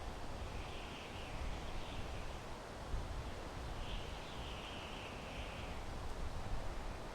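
Wind blowing through pine trees: a steady rushing with a low rumble underneath. Faint high twittering comes in twice.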